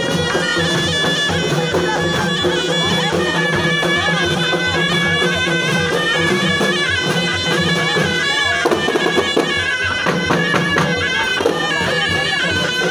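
Moroccan Hayti folk music: ghaita shawms playing a sustained, reedy melody over a quick, steady beat of bendir frame drums.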